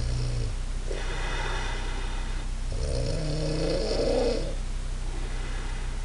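A woman snoring in deep sleep: a breathy rasp about a second in, then a louder, rattly snore from about three to four and a half seconds in.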